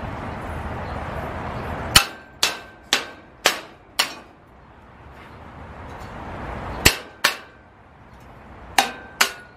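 Steel square tubing clanging as it is struck with a hand tool to knock loose a freshly cut-out section: a run of five sharp ringing hits about two a second, then two more, then another two near the end.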